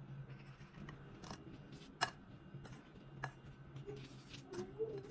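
A metal spoon clicking and scraping against a glass plate while breadcrumbs are spooned over an egg-dipped rolled tortilla: about seven sharp clicks, the loudest about two seconds in, over a low steady hum, with a faint wavering tone near the end.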